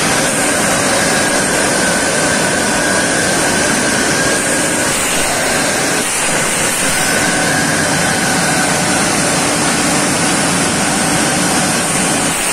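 ERW tube mill running at production speed: a loud, steady mechanical noise with a high whine that fades out about five seconds in and comes back about two seconds later.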